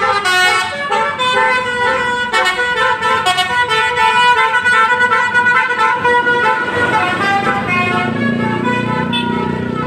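A bus's Basuri telolet multi-tone musical horn playing a quick melody of tooting notes. A low engine rumble grows louder near the end.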